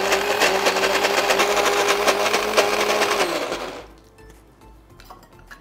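Kitchen mixer grinder running steadily, grinding boiled dry red chillies with a little oil into a smooth paste. The motor is switched off a bit past three seconds in and winds down to a stop.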